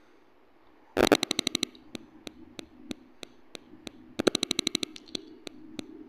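Multimeter probe tips clicking and scraping against the solder joints of the power transformer's pins on a microwave control board while its secondary winding is measured. Two quick rattling runs of clicks, about a second in and again about four seconds in, with single clicks between.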